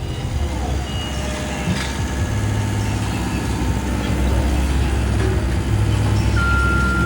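Diesel engine of a CAT tandem road roller running with a steady low rumble while compacting asphalt. A reversing alarm starts beeping near the end.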